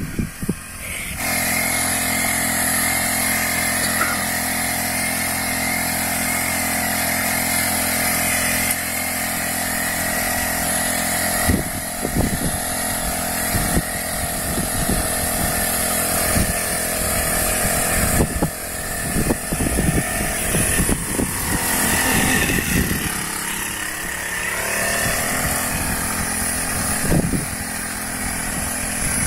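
Small petrol engine of a motorized pesticide sprayer running steadily while the crop is sprayed, its note shifting a few times.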